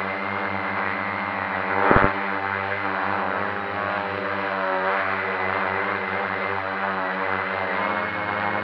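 FPV drone's electric motors and propellers running with a steady, wavering whine. A brief loud thump comes about two seconds in.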